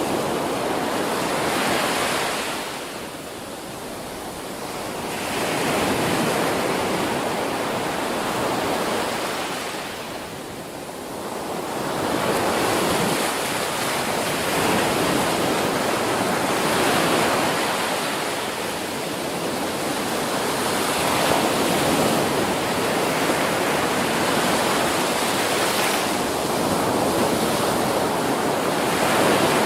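Ocean waves breaking and washing onto a beach: a continuous rush of surf that swells and ebbs, easing off briefly twice in the first half.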